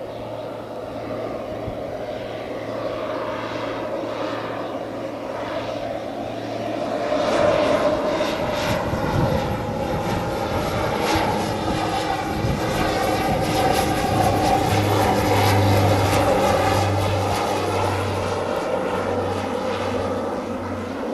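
Britten-Norman Islander twin-propeller aircraft flying low on final approach, its engine and propeller drone swelling about a third of the way in, staying strong through the middle, then easing off as it passes.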